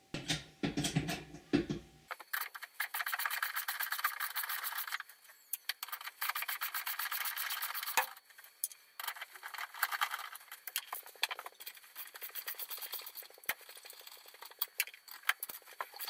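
Hand ratchet wrench clicking fast as bolts are turned out by hand, in several runs of rapid, even ticks with short pauses between them. A lower, pitched creaking sound comes first, lasting about two seconds.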